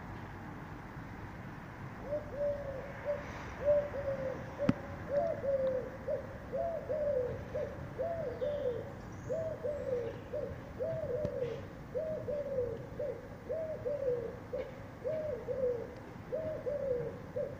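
A pigeon cooing over and over: a long run of short falling coos, some in pairs, starting about two seconds in.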